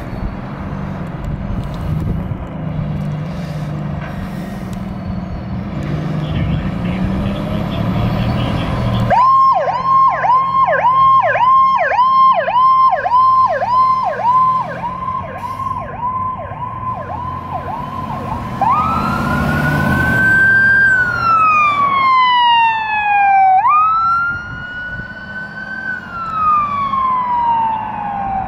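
A fire engine's diesel engine runs low as the truck pulls out. About nine seconds in, an electronic siren starts in a fast yelp of about two downward sweeps a second. Past the middle it switches to a slow rising and falling wail, with a second, higher siren tone sweeping down over it: emergency vehicles responding to a call.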